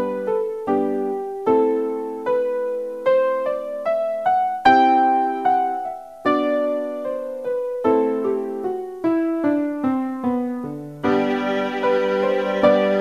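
Background piano music: single notes and chords struck one after another, each fading away. Near the end a sustained backing layer and a low bass come in under the piano.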